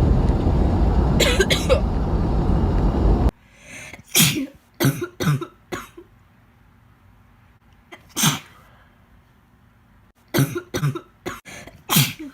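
A girl coughing in short, sharp bursts: a quick run of four coughs, a single cough, then another run of coughs near the end. Before them, a loud low rumble with one brief cough in it cuts off suddenly about three seconds in.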